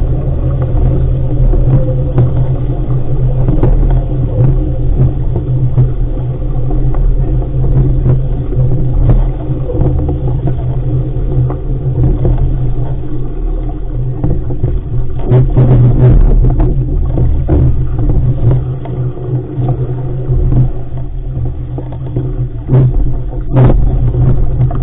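Wind rumbling over a boat-mounted camera's microphone, with water rushing and splashing along the hull of an RS500 sailing dinghy heeled and sailing fast in spray. A few sharp slaps of spray or waves hit the hull, the loudest near the end.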